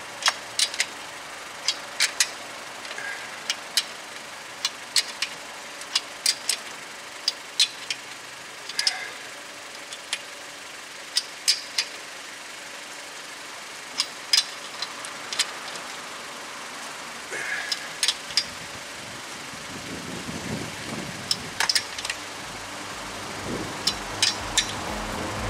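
Sharp clicks from a wrench tightening the wheel lug nuts, singly and in close pairs, about one a second. A low engine rumble builds in the last several seconds.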